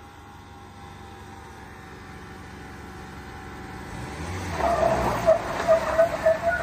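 Mahindra Bolero and Thar engines straining against each other in a tow-rope tug-of-war. The engine noise builds slowly, then about four seconds in it turns loud and rough with a wavering whine, as the vehicles pull under full load.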